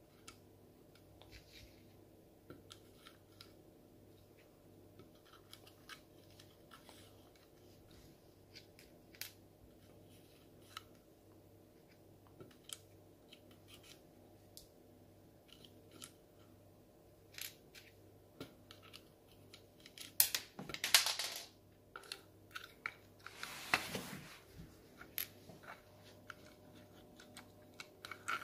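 Small plastic clicks and taps from a PEZ dispenser being handled and loaded with candy tablets, scattered irregularly over a faint steady hum. Two louder noisy sounds, each about a second long, come about two-thirds of the way through.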